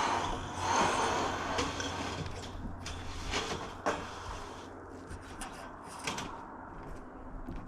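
A sliding scrape followed by scattered knocks and clicks, as a metal roofing panel is handled and set into position on a roof.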